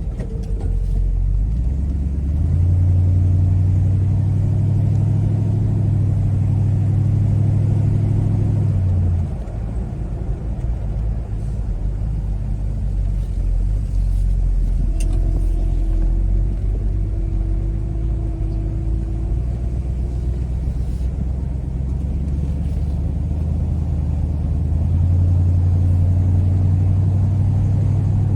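1971 Buick Riviera's 455 V8 engine running with a low rumble. It swells about two seconds in, drops back at about nine seconds, and builds again near the end.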